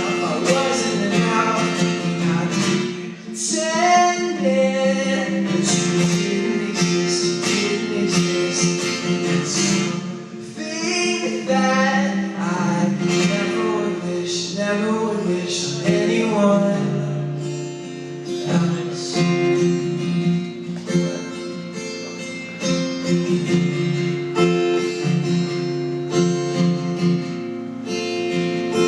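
A song played live: strummed acoustic guitar with singing that comes and goes over it.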